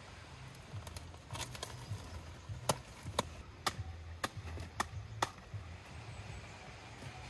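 Cabbage leaves being snapped off the plant by hand: a little leafy rustling, then six crisp snaps about half a second apart.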